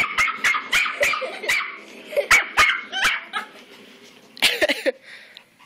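Small Jack Russell–Pomeranian mix puppy barking and yipping excitedly at a spinning toy: a quick run of high yips, a few more spaced barks, then a last cluster of yelps about four and a half seconds in.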